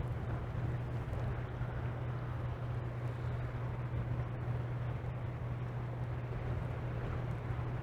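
Steady low drone of a tug's diesel engines as the tug Leonard M pushes its barge, with wind rumbling on the microphone.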